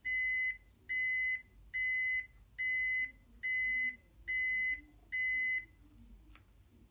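Electronic buzzer in an Arduino-built model truck beeping seven times, about one beep a second, each a steady half-second tone, in time with the model's flashing rear lights.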